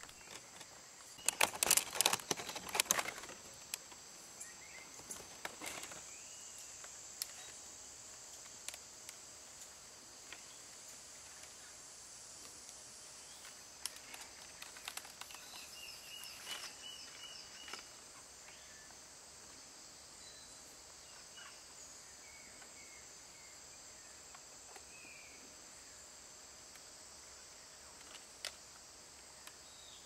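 Quiet rainforest ambience: a steady high-pitched insect hiss, with a few short chirps around the middle. About a second in, a couple of seconds of rustling and crackling.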